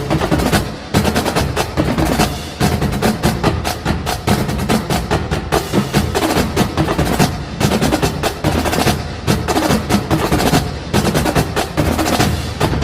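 Music with rapid, busy percussion strikes over steady low sustained notes.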